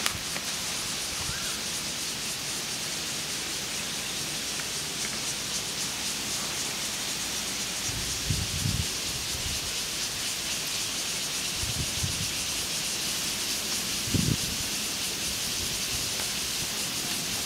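Steady outdoor hiss of wind, with three brief low rumbles of gusts buffeting the microphone.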